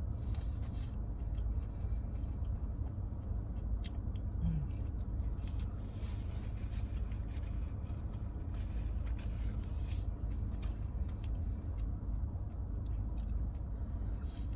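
Close-up chewing and biting of a plate of Hawaiian barbecue chicken, with scattered small mouth and utensil clicks, over a steady low rumble.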